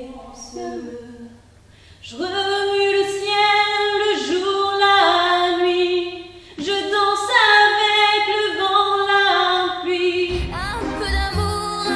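A young woman singing unaccompanied, a slow melody with long held notes. About ten seconds in, music with a low pulsing bass comes in.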